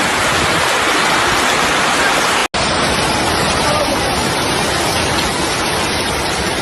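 Loud, steady rush of water, as of floodwater or torrential rain, with a sudden break about two and a half seconds in before it carries on.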